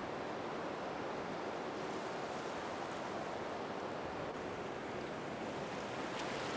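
Steady underwater ambient water noise picked up by a camera below the surface: an even rushing hiss with no distinct events, and a couple of faint clicks near the end.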